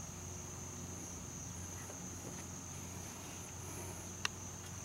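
Steady high-pitched trilling of insects in the background, with one faint click about four seconds in.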